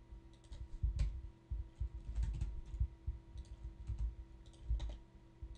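Computer keyboard keys and mouse buttons being pressed in irregular taps and clicks, some with a dull thud, over a faint steady hum.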